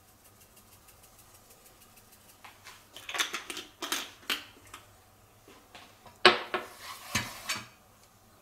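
Wooden chopsticks knocking and scraping against a non-stick frying pan while stirring a butter sauce, in two bursts of clatter with a sharp click a little past six seconds in.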